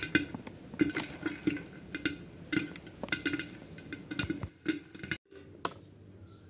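Popcorn kernels popping inside a closed aluminium pressure cooker: irregular sharp knocks against the lid and walls, a few a second, each with a short metallic ring. The popping stops about five seconds in.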